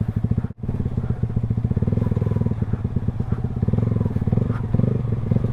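Motorcycle engine running at a steady low speed, its rapid exhaust pulses even and distinct. The sound cuts out for a split second about half a second in.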